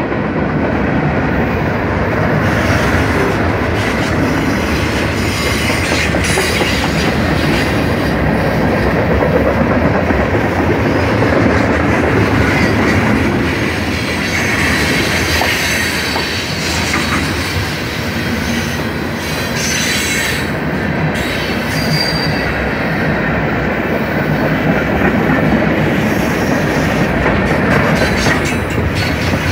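Freight cars of a mixed freight train, tank cars and boxcars, rolling past with a steady loud rumble of steel wheels on rail, clacking over the rail joints and now and then a thin wheel squeal.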